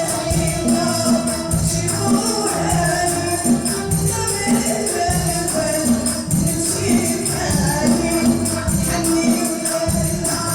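Traditional Moroccan wedding music: a group singing over a steady beat of hand drums and jingling tambourines.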